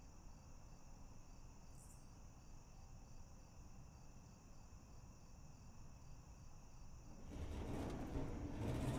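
Faint night ambience of crickets chirping steadily over a low hum. About seven seconds in, a low rumble swells up and grows louder.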